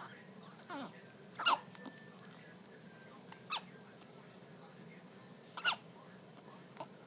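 Newborn babies hiccuping: short, sharp hics about one every two seconds, three of them clearly louder than the rest.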